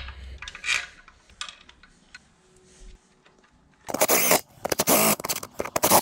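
A few light clicks and taps of metal parts being handled, then a cordless power driver running in three short bursts from about four seconds in, driving the bolts that fasten a gearbox adapter plate to an engine block.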